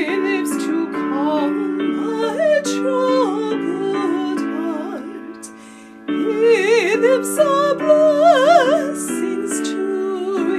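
Hymn music: sustained keyboard chords with a singing voice carrying the melody in vibrato. The music drops away briefly about five seconds in, then the next phrase comes in louder.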